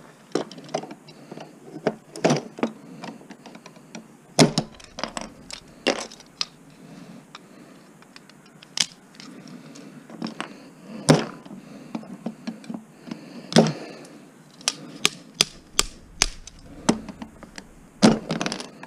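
Screwdriver prying apart a plastic terminal block to free its brass contacts: irregular sharp clicks, taps and snaps of the metal blade against plastic and metal, with a few louder cracks.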